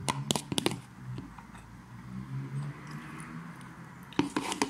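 Eating sounds: a metal spoon clicks against a plastic bowl of rice, in a cluster of sharp clicks at the start and again about four seconds in, with chewing and mouth sounds between.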